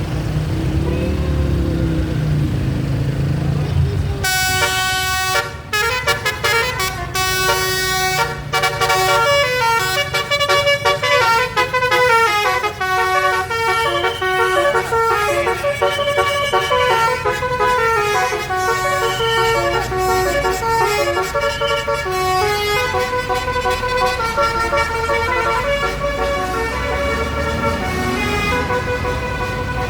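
A bus's telolet basuri multi-tone horn playing a long melody of quick stepping notes, starting about four seconds in, over the low running of the bus engine.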